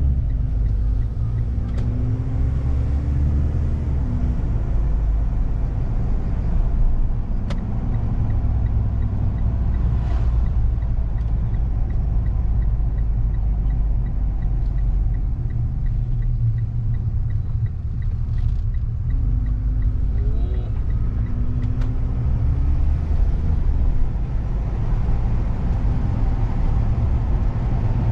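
Mitsubishi Delica minivan driving at steady speed: a continuous low rumble of engine and road noise. A faint, even ticking runs for several seconds midway.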